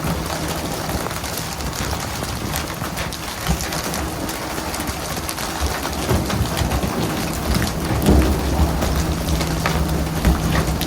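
Water spraying and splashing with a hiss like heavy rain, over the steady low hum of a boat engine, with a few scattered sharp knocks.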